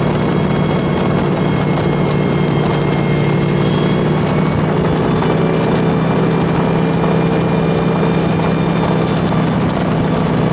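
Universal Hovercraft UH26S underway: its thrust engine and propeller run at a steady speed, a constant low drone heard from inside the cabin.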